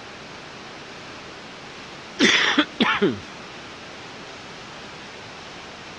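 Steady hiss of heavy monsoon rain, with a person coughing twice in quick succession about two seconds in.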